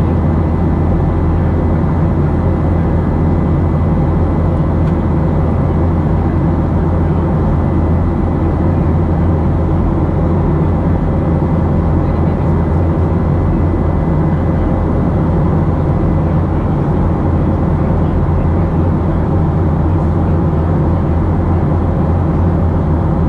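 Steady cabin noise of a Boeing 737-700 climbing, heard inside the cabin: the CFM56-7B turbofan engines' low drone under a rush of airflow, with a faint steady high tone.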